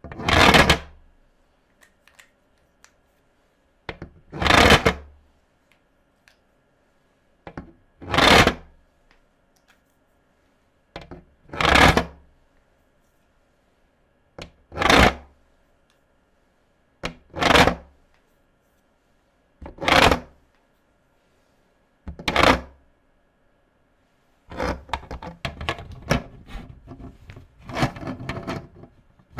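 Felt-tip pen strokes on paper: single swipes about every three seconds, then a quick run of scribbling strokes near the end.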